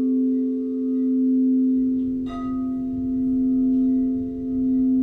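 Crystal singing bowl for the third-eye chakra ringing with a steady, sustained tone that swells and fades slowly. About two seconds in a light strike adds a brighter ring on top.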